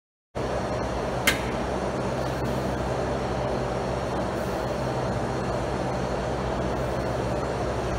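Steady background noise with a low hum starts abruptly about a third of a second in, after silence. A single sharp click comes about a second in.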